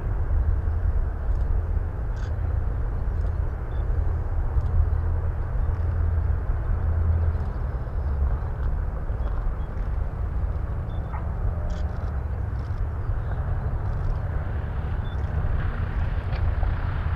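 A B-25 Mitchell bomber's twin radial engines running throttled back as it lands and rolls out along the runway: a steady low rumble that grows louder near the end as the plane nears.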